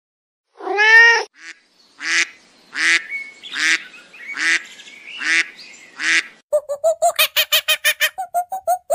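A cat meows once. Then a duck quacks five times in an even series, and near the end comes a fast run of short, high chattering calls, about six or seven a second.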